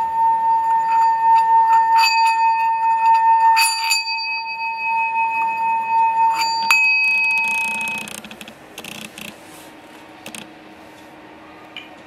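Small hand-hammered brass singing bowl rimmed with a wooden mallet, singing one steady, slightly wavering ringing tone, with three short knocks of the mallet against the rim. The ring stops about eight seconds in, followed by faint handling sounds.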